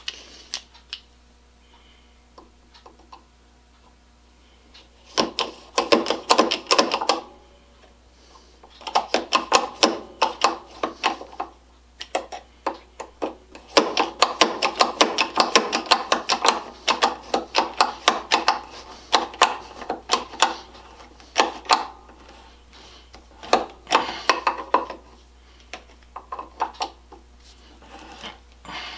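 Goodell Pratt No. 22 spiral push screwdriver pumped by hand to drive a screw into wood: several runs of quick clicking strokes, each lasting a second to a few seconds with short pauses between, starting about five seconds in.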